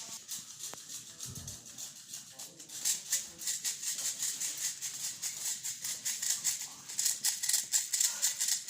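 Airsoft electric guns firing, a dry, rapid clattering of shots that gets louder and denser about three seconds in.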